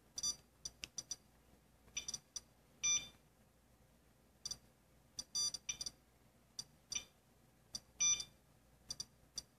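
SOEKS Geiger counter beeping at irregular intervals as it counts radiation from a smoke detector, with a slightly longer beep about every two and a half seconds. The quick chirps are the sign of a raised count rate: the meter reads a high radiation background.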